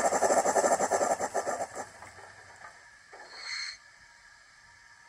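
Recorded steam-engine chuffing from the Zimo sound decoder in an OO gauge Hornby D16/3 model locomotive: quick, evenly spaced chuffs that die away after about two seconds. A brief high hiss follows a little past the middle.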